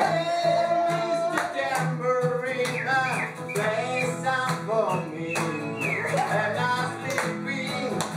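Acoustic guitar strummed steadily while voices sing along without clear words.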